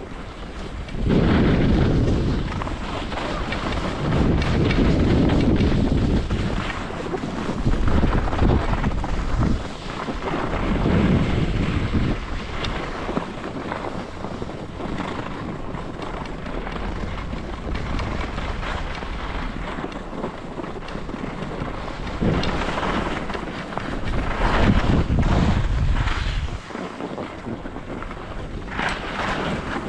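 Wind buffeting the microphone in uneven surges during a downhill run on a ski slope, mixed with the scrape of sliding over packed snow.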